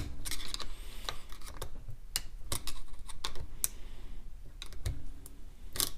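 Irregular sharp clicks and taps of a tool working at a snap ring with no plier holes on an NP208 transfer case, with a louder knock near the end.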